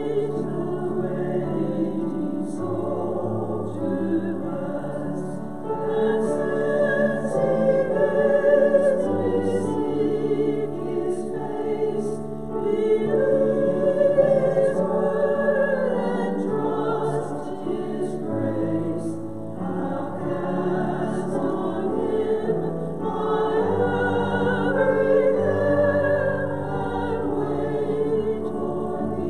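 Choir singing a slow sacred anthem in sustained, vibrato-laden phrases over a steady low bass line.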